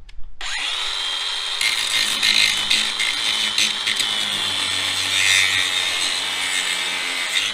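DeWalt DCG416 20V cordless angle grinder spinning up about half a second in with a quick rising whine that settles to a steady high tone. From about a second and a half in, the wheel grinds into steel welds, throwing sparks, and a rough grinding noise rides over the motor's whine.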